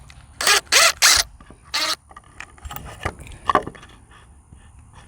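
A dog barking: four quick barks in the first two seconds, then a single fainter one.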